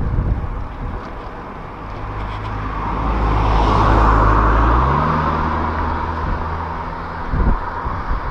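A car passing close alongside, its tyre and engine noise swelling to a peak about four seconds in and then fading, with a low engine hum that shifts in pitch just after it goes by. Wind rushes on the microphone throughout.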